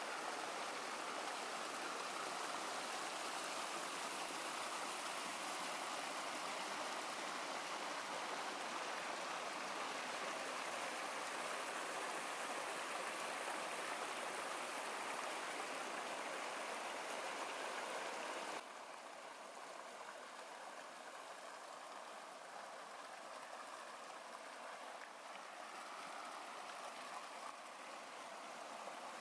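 Small woodland stream rushing over rocks and a little cascade, a steady water noise. About two-thirds of the way through it drops suddenly to a quieter flow.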